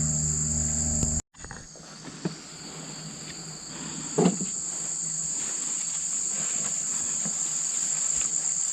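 Steady high-pitched chirring chorus of crickets and other insects. A low steady hum under it stops abruptly at a cut about a second in, and a single light knock comes about four seconds in.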